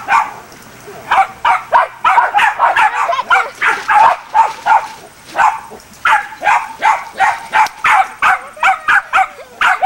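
Small puppy yipping over and over in quick, high barks, about two to three a second, starting about a second in.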